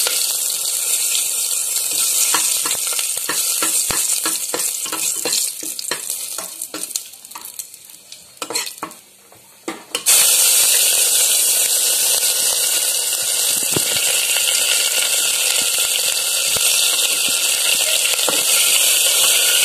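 Hot oil sizzling and crackling around bay leaves and whole spices, with sharp spitting pops that die down to near quiet. About ten seconds in, chopped onions are dropped into the oil and the sizzle jumps suddenly louder, then runs steadily as the onions are stirred with a spatula.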